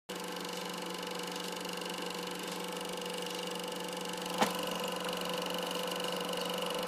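Super 8 film projector running with a steady mechanical whirr and hum. A single sharp click comes about four and a half seconds in.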